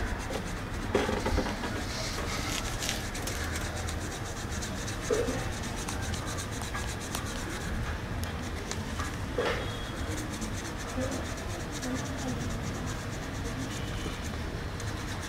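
Paintbrush rubbing fabric paint onto a plastic soda bottle, with a few light knocks from handling the bottle, over a steady low hum.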